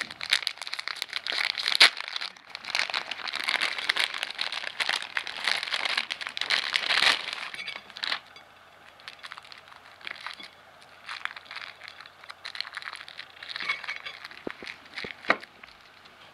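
Crinkly plastic food wrapper rustling and crackling as it is pulled open by hand, dense for about the first eight seconds. It then turns quieter, with scattered crinkles and a few light clicks.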